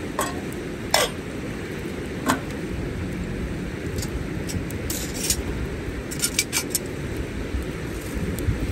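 Metal tongs clinking against a campfire grill: a few sharp single clinks in the first couple of seconds and a quick run of clinks between about five and seven seconds. Behind them is a steady low rushing sound.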